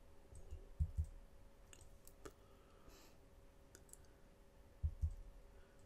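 Quiet room with a faint steady hum, a few faint clicks, and two pairs of soft knocks: one pair about a second in and one near the end.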